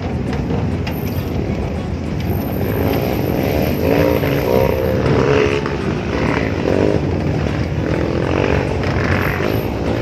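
Steady vehicle engine and road rumble heard from the open bed of a moving pickup truck, with a wavering pitched sound over it from about three seconds in.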